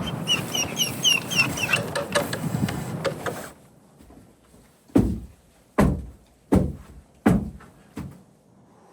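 Busy rustling and clattering with short repeated squeaks, cutting off suddenly, then five heavy knocks about three-quarters of a second apart, the last one weaker.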